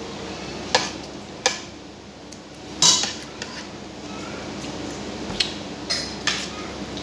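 Cutlery clinking against dishes while eating: about six separate short clinks, the loudest about three seconds in.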